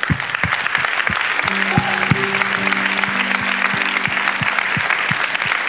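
Congregation applauding loudly, with music under it: a steady low beat about three times a second and held low notes coming in about a second and a half in.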